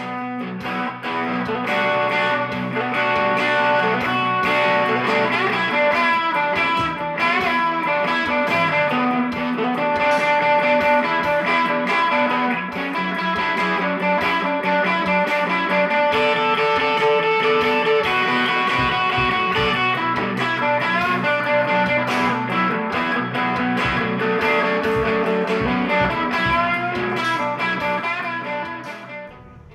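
Background music: an electric guitar piece with strummed chords, fading out near the end.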